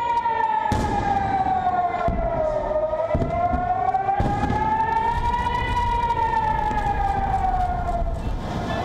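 Civil-defense air-raid warning siren wailing in slow sweeps, its pitch falling, rising, then falling again. Noise and a few dull thuds sit underneath in the first half.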